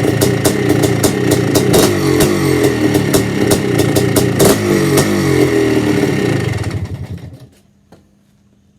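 Yamaha IT490 two-stroke single-cylinder dirt bike engine running after a cold start, its pitch rising and falling with the throttle, with sharp crackles through the exhaust. It winds down and stops about seven seconds in.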